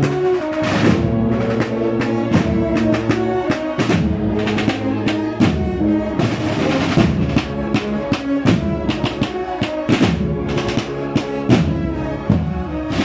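A large band of over 100 players performing: held brass notes over busy drumming, with snare-drum rolls and bass-drum beats.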